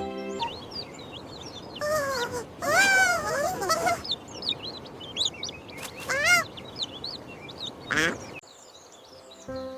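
Cartoon duck quacking in a few loud bursts over a background of small birds chirping. The background music stops just after the start and comes back near the end.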